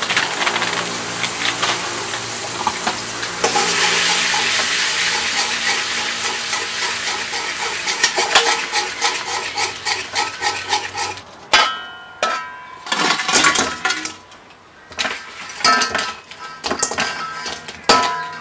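Soy-sauce glaze sizzling in a metal wok while a metal spatula stirs it. About eleven seconds in the sizzle dies away, and the spatula scrapes and clinks against the wok with a short ring as fried chicken pieces are tossed in the sauce.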